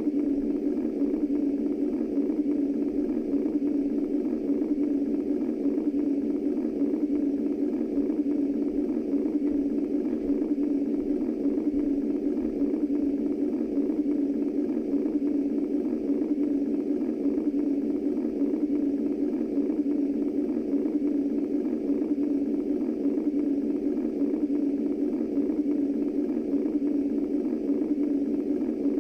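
Womb white noise: a steady low rushing noise that never changes, with no heartbeat or other beat in it.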